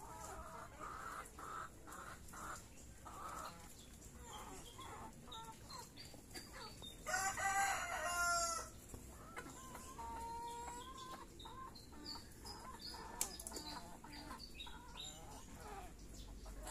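Chickens clucking and calling as they feed, with a rooster crowing once, loudly, about halfway through, a call lasting about two seconds.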